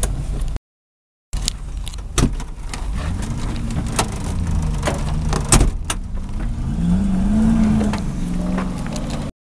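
Off-road 4x4 SUV engine revving up and down as it works over rough ground, with sharp knocks and clatter. The sound drops out completely for under a second near the start.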